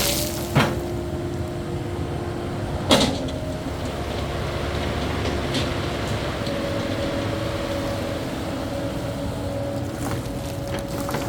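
Caterpillar 308E2 mini excavator's diesel engine running under load with a steady hydraulic whine that shifts slightly in pitch as it works. Two sharp knocks, a light one about half a second in and a louder one about three seconds in.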